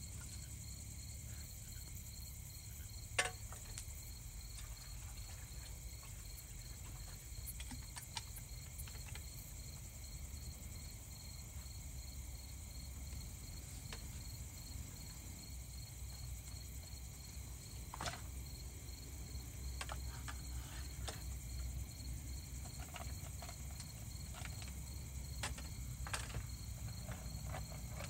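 Crickets chirping steadily in a fast, even pulse, with a low steady rumble beneath. Now and then a short clink or knock of containers and cookware being handled on a wooden table, the sharpest about three seconds in.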